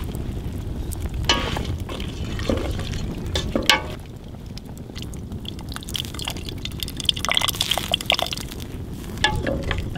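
Liquid sounds from a pot of chicken feet cooking over an outdoor fire, with scattered sharp clicks over a steady low rumble.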